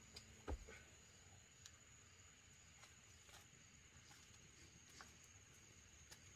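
Near silence, with a faint steady high-pitched tone and a few scattered faint crackles from a small wood fire; one louder knock comes about half a second in.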